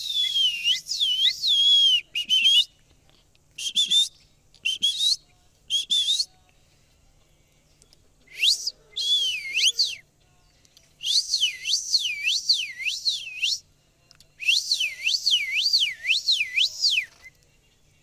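Clear whistling in bouts of one to three seconds with short pauses between. Each bout is a run of quick swooping notes that dip down and rise again, two or three a second.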